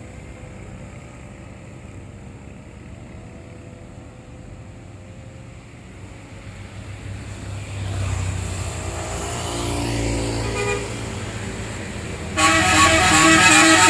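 Tour bus's diesel engine running, growing louder as it draws near, then near the end a loud telolet basuri multi-tone horn plays a quick tune of short notes.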